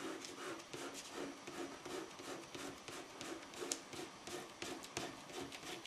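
Fingertip rubbing dried masking fluid off watercolour paper, faint quick repeated rubbing strokes as the rubbery film peels away.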